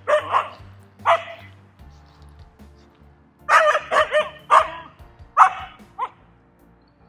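Siberian husky play-barking and yipping in short clusters of high calls that bend in pitch: a couple at the start, a flurry of rapid barks about halfway through, and two short yips near the end.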